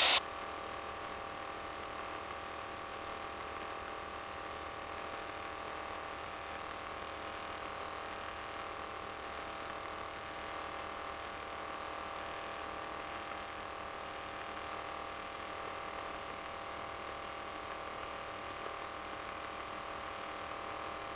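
Steady, even drone of the RV-9A's engine and propeller in flight, heard faintly through the cockpit intercom feed, with a few steady held tones in it.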